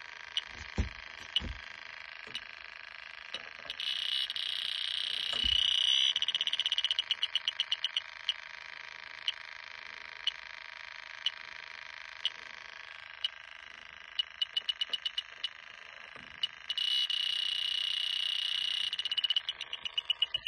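Handheld electronic refrigerant leak detector ticking about once a second, twice jumping into a continuous alarm tone for two to three seconds, with fast beeps slowing back to the steady tick after each. The alarms mean refrigerant is leaking from the Lennox evaporator coil. A few low handling thumps come early on.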